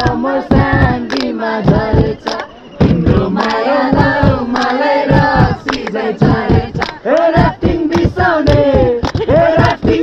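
A group of people singing a Nepali song together in loud, overlapping voices, with a steady beat of sharp hits underneath.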